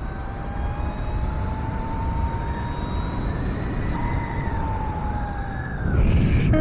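Electric dirt bike's 72 V motor and controller whining as it accelerates: the pitch rises over the first few seconds, holds, then falls as the bike slows into a turn. Wind rumble on the microphone underneath, louder near the end.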